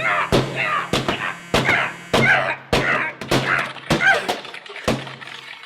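A run of sharp whacks, roughly two a second, struck on a malfunctioning machine to get it working, with warbling high tones between the blows and a steady electrical hum underneath. Near the end the blows stop and the hum cuts off.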